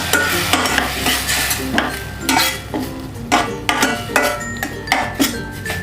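A spoon stirring and scraping onion-tomato masala in a hot pan with repeated strokes, the masala sizzling as water is mixed in.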